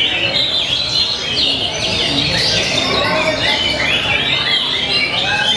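Oriental magpie-robin (kacer) singing: an unbroken run of rapid, varied whistles, slurs and trills. It is the loud, fast 'tembakan' song material that contest kacer are judged on.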